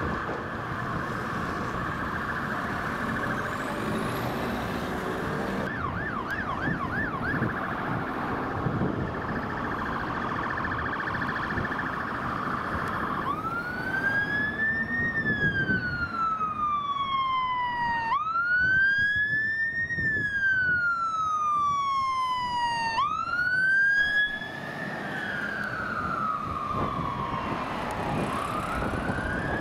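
Fire engine siren on an emergency call. It starts as a fast warbling yelp, with a brief burst of quicker sweeps, then switches about halfway through to a slow wail that climbs quickly and falls away over several seconds, four times. Traffic and engine rumble run underneath.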